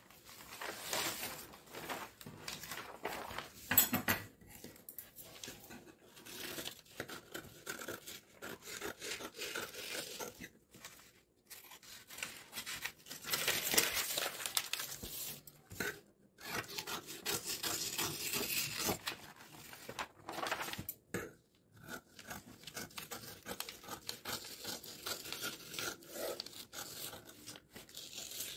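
Scissors cutting through a brown-paper sewing pattern in irregular runs of strokes, with the paper rustling as the sheets are handled.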